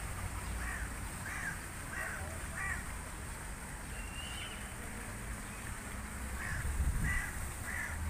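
Crow cawing: four harsh caws in quick succession, a pause, then three more near the end, over a steady low rumble.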